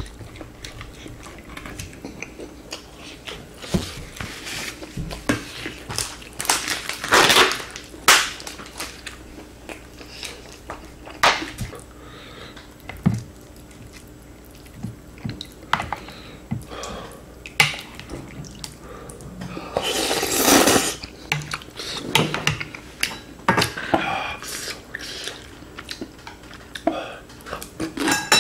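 A spoon clinking and scraping against a glass bowl while instant rice is stirred into leftover spicy ramen broth, with sharp clicks throughout and chewing in between. There are two longer stretches of wet stirring or slurping, about seven and twenty seconds in.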